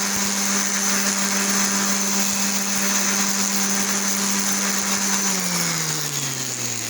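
Electric orbital sander running steadily with a high hum over the hiss of sandpaper on a slowly turning wooden round. About five seconds in it is switched off and its hum falls steadily in pitch as the motor spins down.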